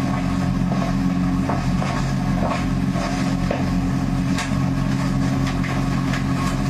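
A steady low mechanical hum, engine-like, with light clicks and knocks now and then.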